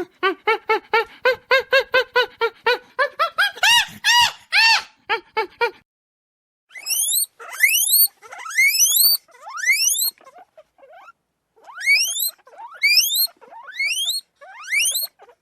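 Animal calls: a quick run of short squeaky calls, about four a second, then after a pause a series of separate squeals that each rise sharply in pitch.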